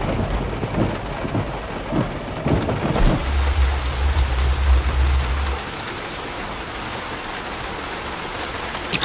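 Heavy rain falling steadily, with a low rumble of thunder from about three seconds in to five and a half.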